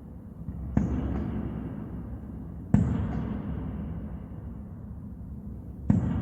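Aerial firework shells bursting overhead: three sharp booms, about a second in, near the middle and near the end, each trailing off in a low rolling rumble of echo.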